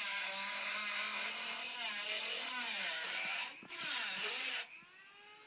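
Power drill boring up into the underside of a rain gutter, its motor pitch wavering under load. It stops briefly about three and a half seconds in, runs again for about a second, then stops.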